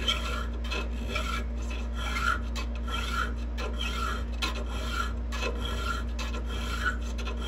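A hand file rasping across the steel cutters of a .325 chainsaw chain clamped in a vise, square-filing them in repeated strokes about once a second.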